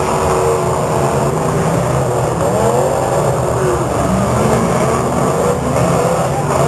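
Several demolition derby cars' engines running and revving together, their pitches rising and falling over one another, loud and continuous.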